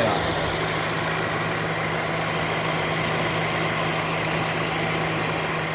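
2014 Mazda Demio's engine idling steadily with an even low hum, running smoothly now that a new accessory-belt tensioner has cured the rattle it used to make.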